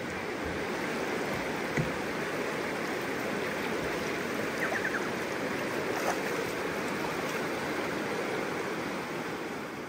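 River water running, a steady rush that begins to fade near the end.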